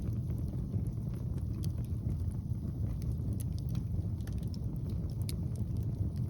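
Wind rumbling on the microphone, with scattered sharp crackles and pops from a log fire.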